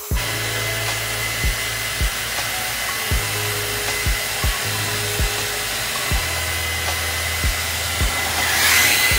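Panasonic hair dryer blowing steadily on its strongest Turbo setting while drying hair, growing louder near the end. Background music with a steady beat runs under it.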